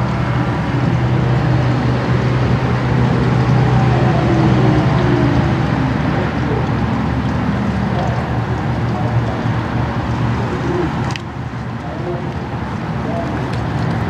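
Federal Signal Thunderbolt 1000T civil defense siren sounding loudly. Its chord of tones glides slowly down in pitch over several seconds over a steady low hum, and the level drops suddenly about eleven seconds in.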